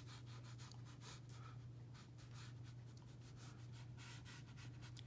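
Faint quick strokes of a watercolour brush dabbing and scratching on watercolour paper, many short strokes in quick succession, over a low steady hum.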